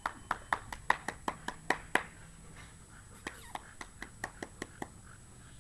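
Hands clapping quickly, about four claps a second, to call puppies over; after about two seconds the claps turn fainter and more scattered, with a short high-pitched yelp or voice in the middle.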